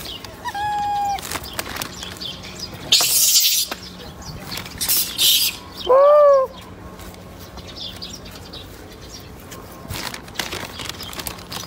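Macaque calls: a short, flat coo near the start, then a louder coo about six seconds in that rises and falls in pitch. Between them come two brief, loud rustling hisses.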